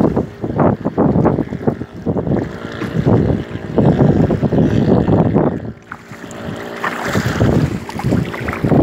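Gusty wind buffeting the microphone over water splashing as a hooked boga thrashes at the surface beside the boat and is brought to the landing net. The noise comes in irregular surges, easing briefly about six seconds in.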